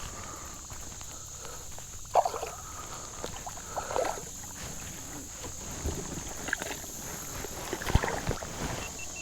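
Water splashes and knocks on a kayak as a small smallmouth bass is brought in, with one sharp knock about eight seconds in.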